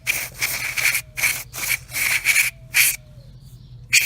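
Back-and-forth scrubbing strokes cleaning the surface of a steel foot peg mount, about two strokes a second, stopping about three seconds in.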